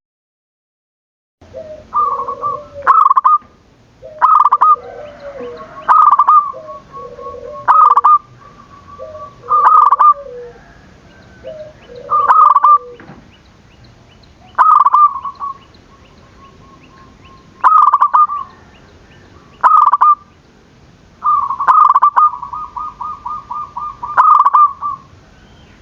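Zebra doves (perkutut) cooing. After a brief silence, loud coo phrases repeat every two to three seconds, several ending in a rolling trill. A lower-pitched cooing voice answers between them through the first half.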